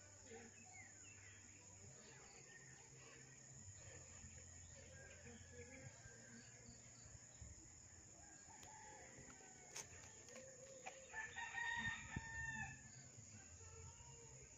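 A rooster crows once, about eleven seconds in, lasting about a second and a half, over faint outdoor background with a few bird chirps.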